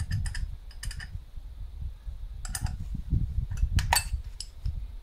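Irregular light clicks and clinks of small parts being handled, over a low rumble of handling noise.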